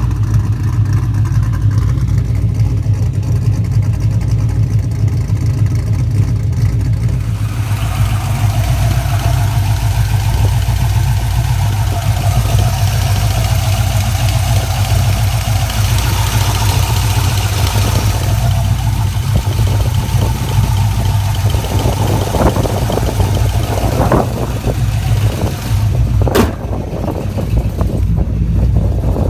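Chevrolet LS1 5.7-litre V8 running steadily at idle, the engine whose lifter tick is in question. Near the end there are a few knocks and one sharp click.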